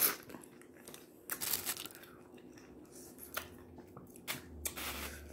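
Boiled crawfish being eaten by hand: shells cracking and peeling, with sucking and chewing heard as a string of short, sharp crackles and smacks, the loudest right at the start.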